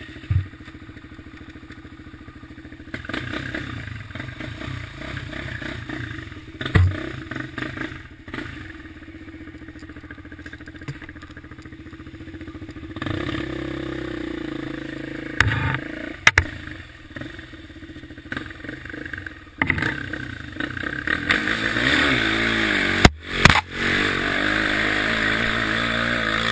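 Sport quad's engine running as it is ridden over sand, heard from the rider's helmet: low, steady revs for the first half, then louder and revving up and down over the last several seconds. A few sharp thuds from bumps break in along the way.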